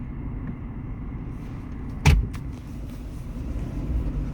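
Steady low rumble of a car, with a sharp knock about two seconds in and a fainter click just after it.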